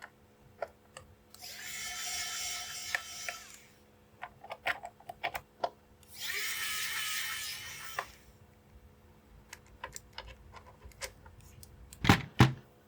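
A small motorised tool whirring in two bursts of about two seconds each, with scattered light clicks between and after them and two loud knocks near the end.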